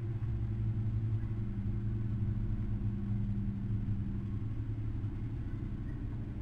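Steady low hum with a rumble underneath, unchanging throughout.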